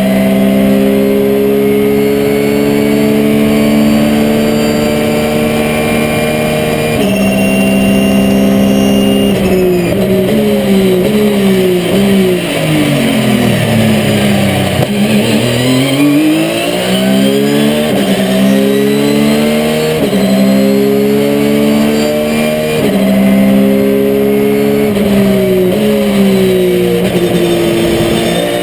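Porsche 997 GT3 RSR's flat-six racing engine heard from inside the cockpit at speed. It holds high revs, shifts up once about seven seconds in, then the revs fall away under braking to a low point about halfway through, and it accelerates hard again, climbing through several quick upshifts.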